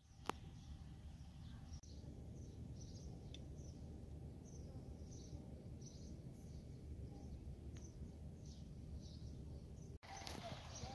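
Quiet outdoor ambience: a low steady rumble with small birds chirping now and then, and a single sharp click just after the start.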